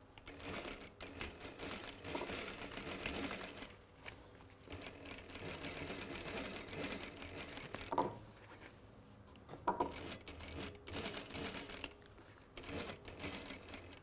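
Industrial sewing machine stitching back and forth across overlapped elastic, running in several short bursts with brief pauses as the seam is backstitched. Two sharp clicks stand out in the middle.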